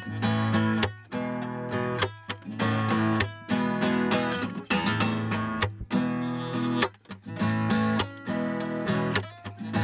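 Acoustic guitar strummed in chords, with frequent short breaks between the chords.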